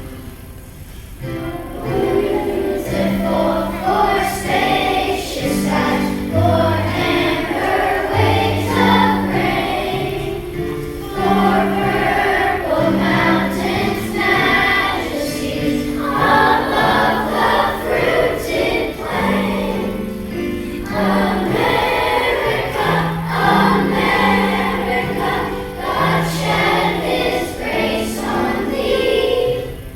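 A choir singing a song together with instrumental accompaniment, in sustained notes over a moving bass line.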